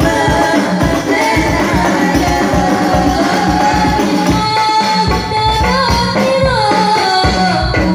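A woman singing sholawat solo into a microphone, a single melody line with ornamented gliding phrases, over a steady beat of hand-struck frame drums with jingles.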